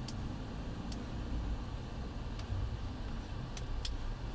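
A car driving at low speed, heard from inside the cabin: a steady low rumble of engine and road noise. A few sharp clicks stand out against it at irregular moments.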